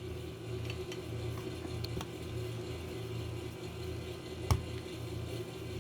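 Steady low background hum, with a few faint ticks and one sharp knock about four and a half seconds in.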